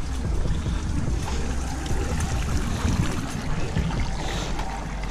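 Wind buffeting the camera's microphone: a steady low rumble with a hiss over it.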